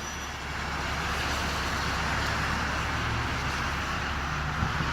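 Road traffic passing: a steady rush of vehicle noise that swells slightly about a second in and holds, over a low steady hum.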